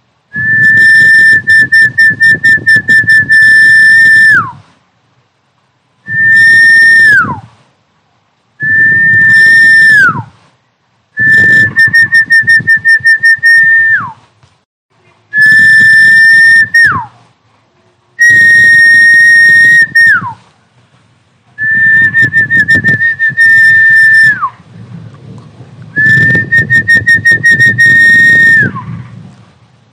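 Recorded snakehead-fish calling whistle, a lure sound for snakehead: a series of about eight loud high whistles with short gaps between them. Each is held on one note, several with a rapid flutter, and each ends in a quick downward slide.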